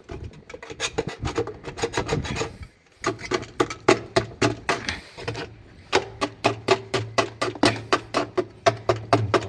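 Brush scrubbing the inside of a washing machine tub in quick, even rasping strokes, about four a second, with a short break about three seconds in.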